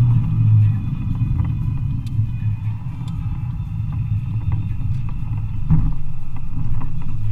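Ford Focus engine and tyre noise heard inside the cabin while driving slowly: a steady low rumble that eases off after the first second, with a brief thump about six seconds in.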